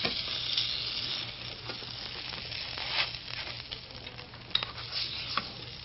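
Breaded eggplant slices sizzling as they brown in a skillet, a steady frying hiss broken by a few sharp clicks of a wooden spatula against the pan.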